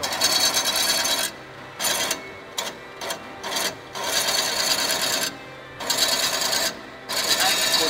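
Metal rod feeding and turning through the rollers and guide of an FDY-6L line-straightening machine, metal rubbing on metal. The scraping comes in stretches of about a second, broken by several short quieter gaps.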